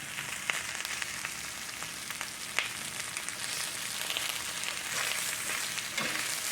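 Food frying in a cast-iron skillet: a steady sizzle with scattered pops and crackles.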